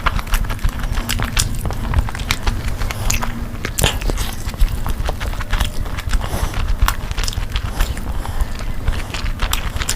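Close-miked eating sounds: a person biting and chewing food, with many short, irregular mouth clicks.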